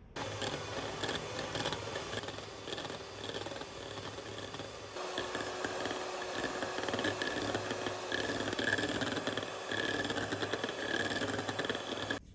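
Geepas electric hand mixer running, its beaters whisking whipping cream in a glass bowl: a steady motor whirr with a low hum, which shifts slightly in tone about five seconds in.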